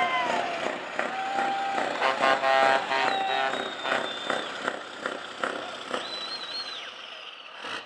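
Scania truck tractor unit driving slowly past at low speed, among crowd voices. About two seconds in, a loud pitched horn sounds for roughly a second, followed by thin high whistle-like tones.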